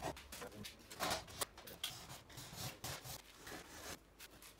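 Irregular clicks, taps and rustling of hands handling tools and materials, loudest in a cluster of sharp knocks about a second in.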